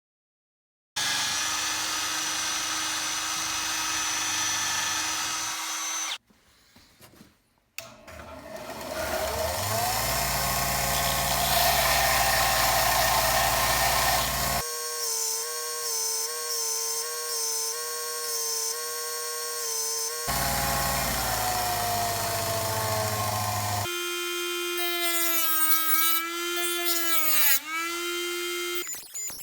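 Electric power tool motor running in several separate stretches with a steady whine. One stretch winds up in pitch, another winds down, and near the end the pitch briefly dips and recovers.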